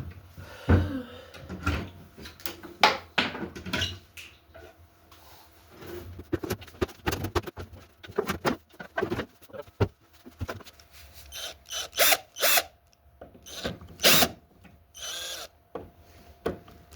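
Woodworking tool noises: a run of irregular knocks and clicks, with a few short, louder bursts in the second half.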